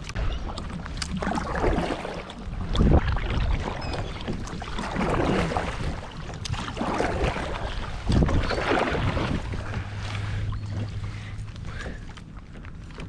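Water sloshing and splashing around a fishing kayak, in surges every second or two, with small knocks and clicks against the hull.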